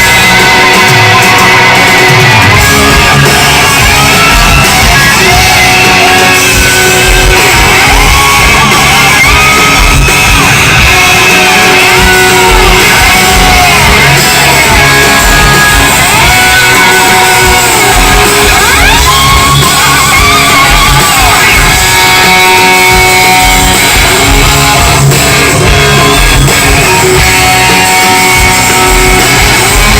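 Live rock band playing loud, with an electric guitar sliding up and down in pitch in repeated swoops over bass and drums, echoing in a large hall.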